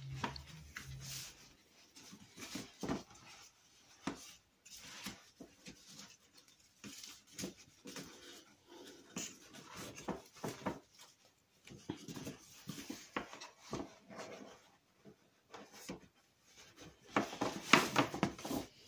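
Paper gift bag and its ribbon handles being handled: scattered soft rustles and taps, with a louder run of crinkling near the end.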